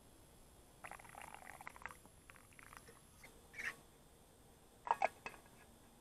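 Quiet handling noise from a stainless steel thermos and metal camping cups: a spell of small irregular clicks and rustles, a short scrape, then two sharp clinks in quick succession about five seconds in, the loudest sounds.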